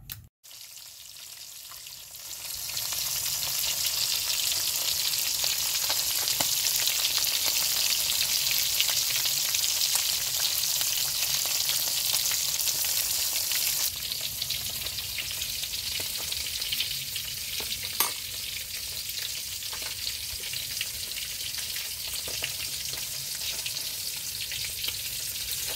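Whole small river fish frying in hot oil in a metal wok: a steady sizzling that swells about two seconds in and settles a little lower partway through, with a single sharp click near the middle.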